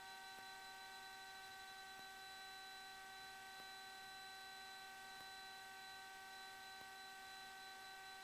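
Near silence on the cockpit intercom audio feed: a faint, steady electrical hum made of several fixed tones, with a faint tick about every second and a half.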